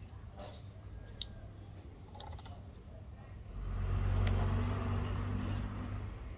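A few sharp metallic clicks as a lead's clip and a mains plug are fitted for an electrolysis setup. Then a loud low hum with a hiss swells up about halfway through and fades again over some two seconds.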